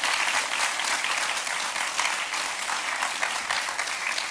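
Audience applauding: many people clapping together, easing off a little near the end.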